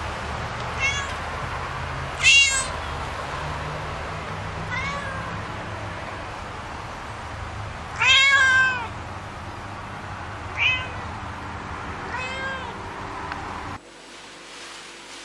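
A domestic cat meowing repeatedly: about six meows, the loudest about two seconds in and a longer one around eight seconds in, over a steady hiss of rain that cuts off near the end.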